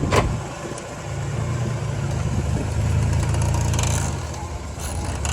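1986 Nissan 300ZX's V6 engine running at low speed as the car creeps along, with a single sharp knock just after the start. The car has a wheel noise that was traced to wheels that had not been tightened.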